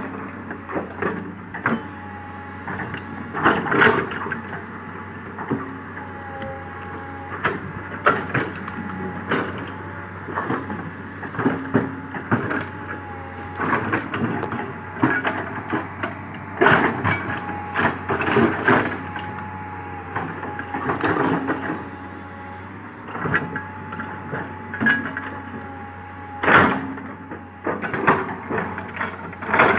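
Komatsu PC200 hydraulic excavator digging: its diesel engine runs steadily under a thin whining tone that dips now and then, while the bucket scrapes and strikes the ground with repeated knocks and cracks.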